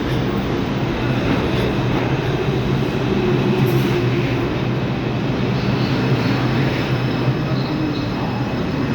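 R142 subway train pulling into the station, with a steady rumble of wheels on rail and a low hum from its traction motors, plus a few faint high squeals in the second half.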